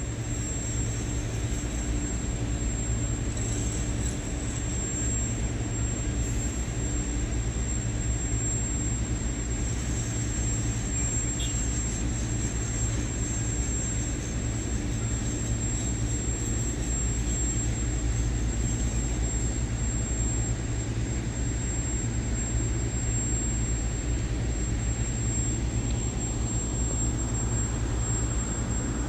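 Steady low rumble of heavy construction machinery running, with a constant thin high-pitched whine over it.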